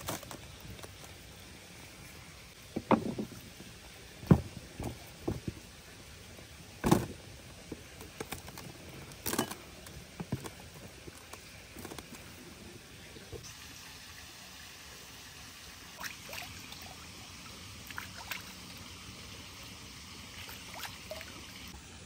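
Knife cutting through a whole raw chicken along the backbone on a wooden cutting board: a series of sharp crunches and knocks as the blade goes through bone and strikes the board, loudest in the first half and fainter later.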